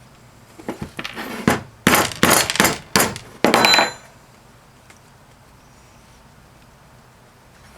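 Sharp metallic clanks and knocks from a Flojet water pump being broken apart for scrap: a quick run of strikes over about three seconds, the last ones ringing briefly.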